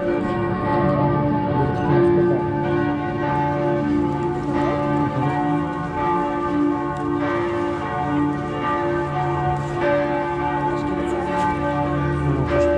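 Several church bells ringing together in a continuous peal, their strokes overlapping at different pitches.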